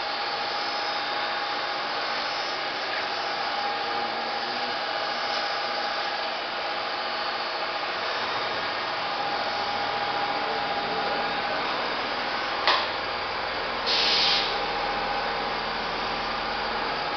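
CNC vertical machining centre running a cut with flood coolant spraying inside its enclosure: a steady hiss and whir with a faint steady tone in the first half. A low rumble comes in about ten seconds in, followed by a sharp click and a short loud hiss about half a second long.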